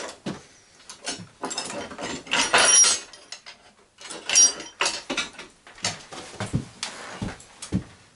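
Metal hand tools and parts clattering and clinking on a workbench in irregular bursts, some with a bright metallic ring, then a few short dull knocks near the end.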